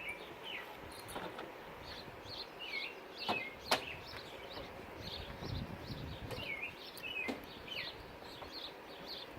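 Small birds chirping repeatedly, with a few sharp clicks; the loudest click comes a little over halfway through.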